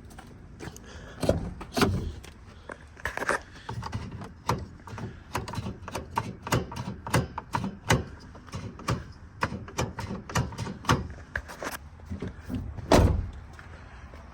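Metal clicks, clanks and knocks from working on a pickup's hood latch by hand, irregular and spread throughout, with one heavier metallic thunk near the end.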